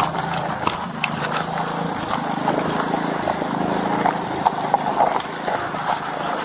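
A vehicle engine running steadily, with scattered clicks and knocks of equipment being handled close to the microphone.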